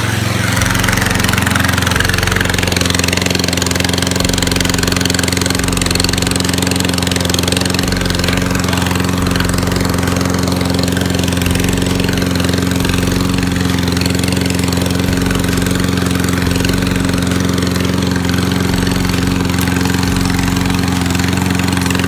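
Walk-behind gas lawn mower's small single-cylinder engine running steadily at a constant speed with a loud muffler, freshly started after sitting unused for over a year.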